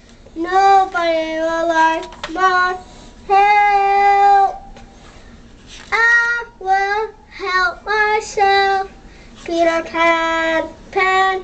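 A young boy singing in sung phrases, with a long held note about four seconds in, a short pause, then a run of shorter notes in the second half.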